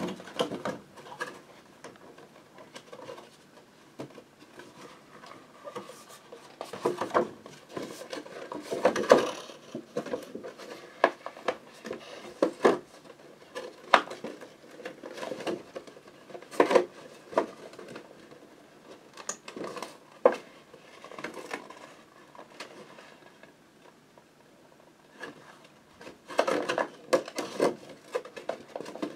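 Hands handling figure packaging: irregular clicks, taps and rustles of paper and packing as a piece of the box is taken out and a paper insert is pulled at, with a busier stretch of handling near the end.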